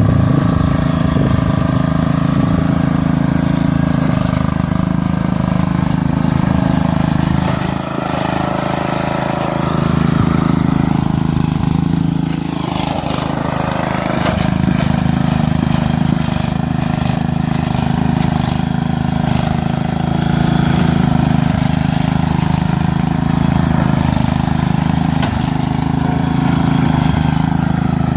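Riding lawn mower engine running steadily at full throttle, dipping briefly about eight seconds in.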